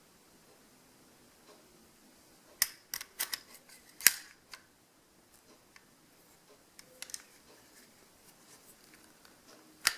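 Sharp metallic clicks from the mechanism of a vintage die-cast Hubley Colt 45 cap revolver being handled. They come in scattered groups: a quick run of clicks a few seconds in, a pair about two-thirds of the way through, and one more near the end.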